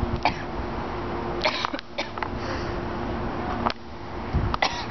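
A young woman coughing in several short, sharp bursts, her throat irritated by a mouthful of dry ground cinnamon.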